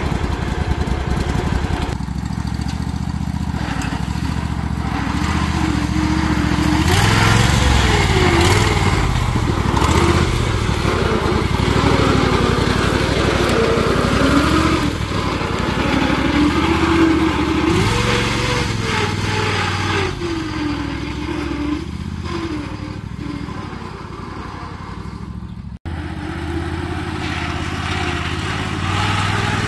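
Lawn tractor's small engine running, its speed rising and falling again and again as the throttle or load changes. The sound breaks off for an instant near the end, then the engine carries on.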